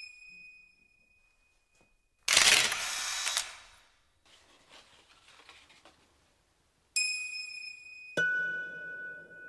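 Drama sound design: a high bell-like chime rings and fades, then a film camera's shutter and wind-on clatter for about a second. Near the end a second chime rings and a lower held tone joins it.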